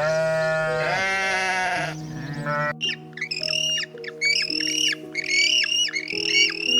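Animal calls over background music: first one loud, drawn-out call lasting about two seconds, rising and then falling in pitch. From about three seconds in comes a quick run of short, high calls, several a second.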